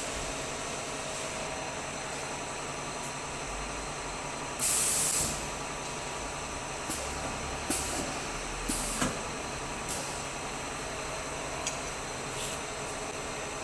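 Pneumatic PVC window-profile welding machine working: a loud burst of compressed air hissing out of a valve about five seconds in, then several shorter hisses and light knocks as its air cylinders move, over a steady machine-room hum.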